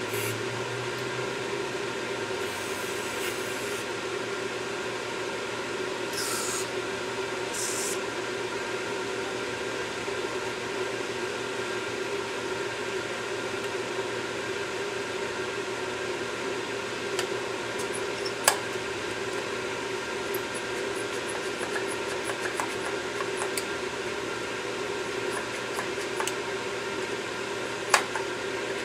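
Hand-cleaning a removed EGR valve over an aluminium pan with a small tool: light scraping and rubbing, three short hisses in the first eight seconds, and two sharp metal clicks later, over a steady background hum.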